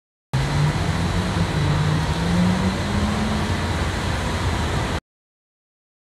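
Loud, steady rushing noise with a low hum that rises slightly in pitch, starting abruptly just after the start and cutting off suddenly about five seconds in.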